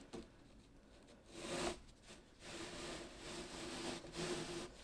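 Faint rubbing and rustling of hands and yarn on a wooden rigid heddle loom as the heddle is set in the down position and the weft is passed. There is a light tap at the start and a longer stretch of rubbing through the second half.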